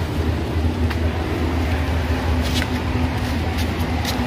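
A vehicle's engine running steadily, a low hum with a few short clicks over it.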